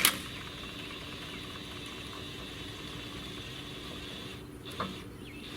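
DeWalt DCF899B brushless cordless impact wrench running steadily as it drives the solar panel's raise-and-lower mechanism. The run starts with a click and drops off about four and a half seconds in, followed by a short knock.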